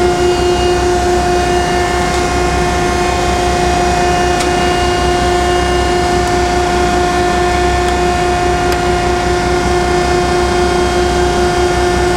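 1969 Landis 1R universal cylindrical grinder running idle with its wheel spinning and hydraulic system on, the wheel retracted from the work: a steady hum with a constant high whine.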